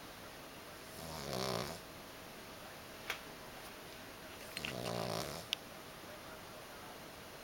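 Little pug snoring in its sleep: two snores about three and a half seconds apart, each lasting about a second. A few brief sharp ticks fall between and after them.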